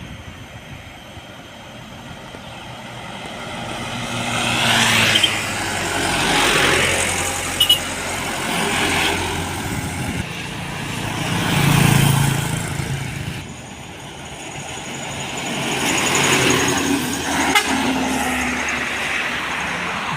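Heavy trucks and other road traffic passing one after another, engine and tyre noise swelling and fading with each pass. There are two brief sharp sounds, one about a third of the way in and one near the end.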